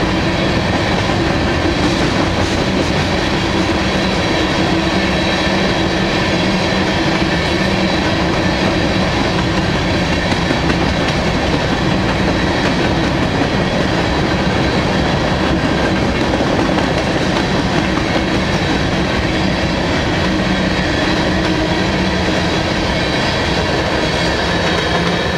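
Covered hopper cars of a freight train rolling past close by: steady noise of steel wheels running on the rails, with faint steady ringing tones from the wheels.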